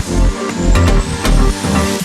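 Electronic background music with a pounding beat and a rising sweep that turns and falls away near the end.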